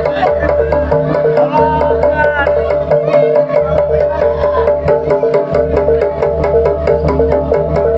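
Loud Javanese jaranan ensemble music. A repeating pattern of pitched gong-chime tones runs over a fast, even beat of clicks and low drum strokes, with a wavering melodic line on top for a moment in the first few seconds.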